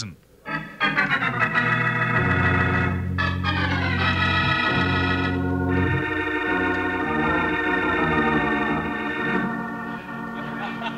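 Organ music bridge: a series of held organ chords marking a scene change in a radio drama. The chords start after a brief pause and change several times, getting softer near the end.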